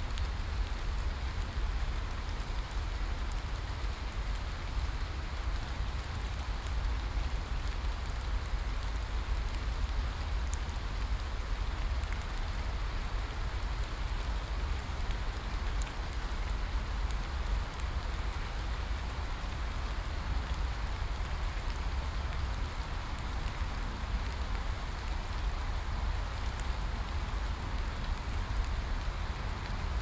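Heavy rain falling steadily on leaves: a dense, even hiss with a low rumble underneath and occasional sharper drop ticks.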